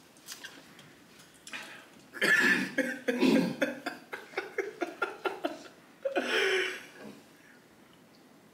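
A man coughing and laughing: two harsh coughs about two and three seconds in, a run of short chuckles, and another cough burst around six seconds in.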